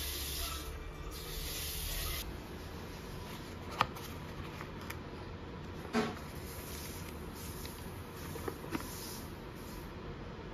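Water running from a bathroom faucet into a ceramic sink basin for about two seconds, then cutting off. After it come a few light clicks and taps as a small cardboard box of faucet aerator parts and its paper card are handled, the sharpest about halfway through.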